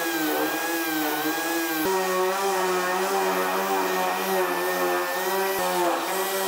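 A dual-action (DA) sander with coarse 36-grit paper running steadily against the refrigerator's sheet-metal body, stripping paint and rust. Its motor hum wavers slightly in pitch and shifts abruptly twice.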